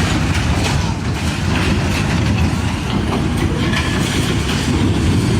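Machinery running: a steady low rumble with many short knocks and clatter through it.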